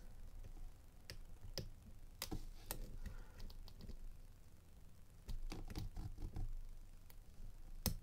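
Faint, irregular small clicks and taps of a steel hook pick and tension wrench working the pin stacks inside an old Chubb padlock during single-pin picking, the pins gummed with oily grease. A few clicks come close together past the middle, and the sharpest click comes near the end.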